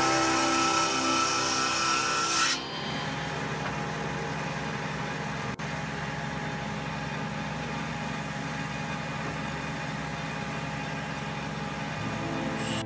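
Background music for the first two and a half seconds, then it cuts to a stationary woodworking machine running steadily as a large hardwood plank is fed across it, a continuous drone with the hiss of wood being cut.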